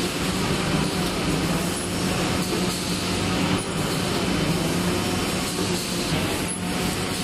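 Popsicle production line running with its automatic stick inserter: a steady machinery hum with a low drone, and a few faint clicks from the stroking mechanism.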